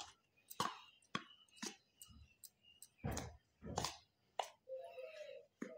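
A spoon stirring ground spice powder in a steel plate: short, irregular scrapes and clicks as the spoon drags through the powder and touches the metal.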